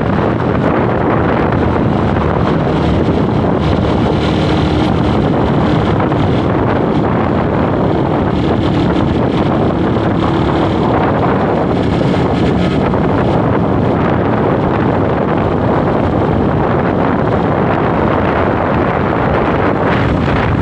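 Wind noise on the microphone of a moving motorcycle, over its engine running at a steady pace.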